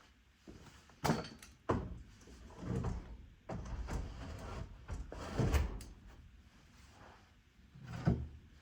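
A few sharp knocks and clunks of things being handled and set down, with scraping and rustling between them.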